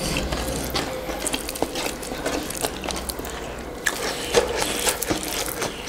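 Close-up eating sounds of chicken wings being chewed: wet mouth noises with small, irregular clicks and smacks.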